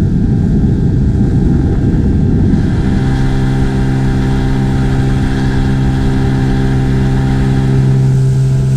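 Inflatable boat's outboard motor running steadily under way. A rough low rumble for the first few seconds, then a steady, even engine hum comes through clearly from about three seconds in.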